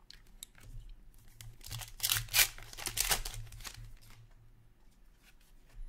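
Hockey trading cards and their wrapping being handled by hand: scattered light clicks, then a crinkling rustle that is loudest about two to three seconds in.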